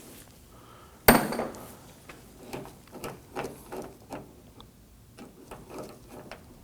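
A ratchet with a T30 Torx bit working the captive screw that holds the door handle in a car door: a sharp clunk about a second in, then a run of light, irregular clicks and knocks.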